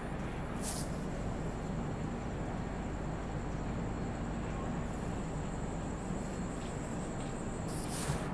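Express passenger train running, a steady low rumble with a thin high steady whine over it and a brief hiss near the start and again near the end.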